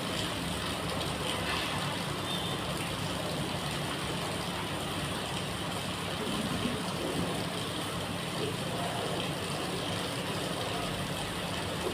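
Steady traffic noise of running vehicle engines, with an even low hum and no distinct events.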